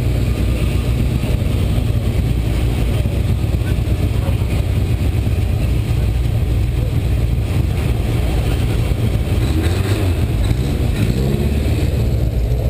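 Classic cars' engines idling in a slow-moving queue, a deep steady rumble close by.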